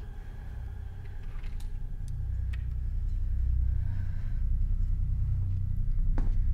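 Low rumbling drone that swells steadily louder, with a few faint clicks, and a deep thud near the end that begins a slow pulsing beat, like a tension-building film score.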